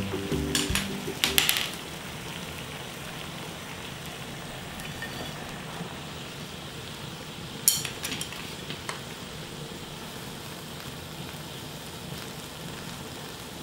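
Water at a rolling boil in a frying pan, bubbling steadily, for blanching sweet potato stems. A utensil clinks against the pan a few times in the first two seconds, and there is one sharp knock a little past the middle.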